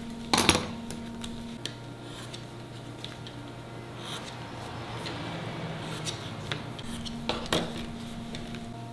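Metal hand tools clinking and clattering, with a loud clatter about half a second in and another near the end, scattered light ticks between, over a steady low hum.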